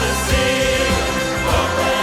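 Large church choir and orchestra performing a worship song, many voices singing together over the band and orchestra with a steady beat.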